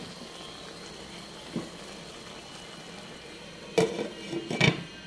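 Freshwater crayfish simmering and sizzling in a pan of sauce, a steady hiss. Near the end a glass pan lid is set on with a couple of sharp clanks.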